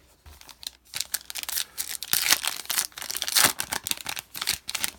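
Foil trading-card pack being torn open and its wrapper crinkled, a busy crackle of rustles and rips that is loudest in the middle.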